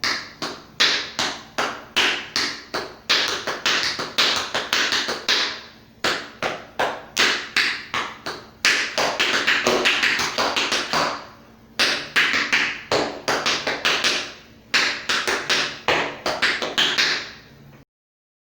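Tap shoes striking a hard floor in quick rhythmic phrases of sharp metallic taps, in several bursts with brief pauses between them, stopping near the end.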